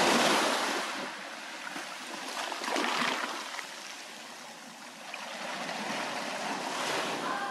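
Sea waves breaking on a rocky shore, the surf swelling and ebbing, loudest at the start and again about three seconds in.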